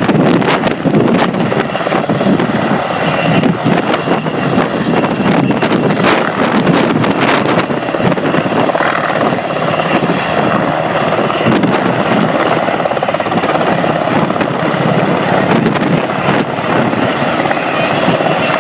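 UH-60 Black Hawk helicopter hovering low, its rotor and turbine engines running loud and steady. A fast chop from the rotor blades is clearest in the first half.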